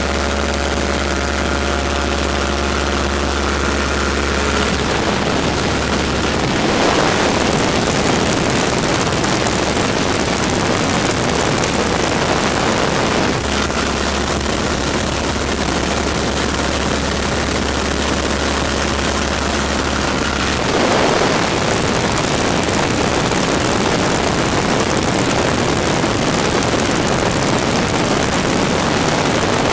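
De Havilland Tiger Moth biplane in flight, heard from the open cockpit: the engine and propeller hum under a heavy, steady rush of wind. The engine's hum fades out about 7 s in, with a brief surge of wind, returns about 13 s in, and fades out again with another rush of wind about 21 s in.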